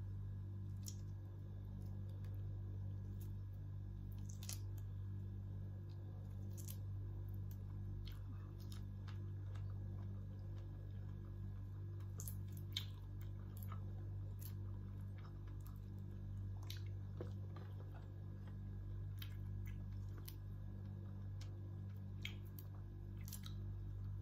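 A person chewing a mouthful of shrimp, with scattered small clicks and smacks of the mouth, over a steady low hum.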